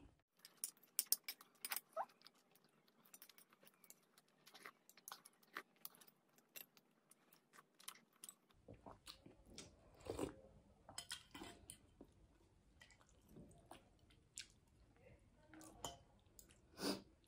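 Faint close-up chewing and small wet mouth clicks of someone eating, with a few louder mouth or utensil sounds about ten seconds in and near the end.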